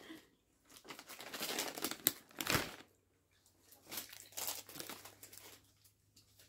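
Plastic popcorn bag crinkling as it is handled, in two stretches of crackling, with a sharp crackle about two and a half seconds in.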